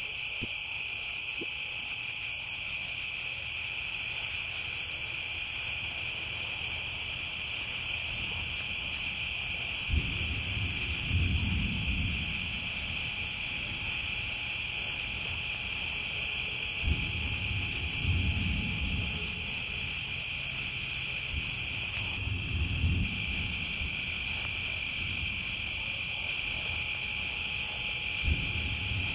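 Crickets and other night insects calling: a steady high trill with a pulsing chirp layered just above it. Low rumbles swell and fade four times over it, starting about a third of the way in.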